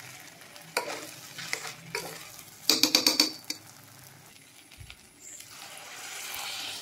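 A steel spoon stirring and scraping a frying dal-and-rice mixture in an aluminium pressure cooker, with separate clinks against the pot and a quick run of clinks about three seconds in. Near the end water is poured in from a bottle, a rising hiss over the sizzling mixture.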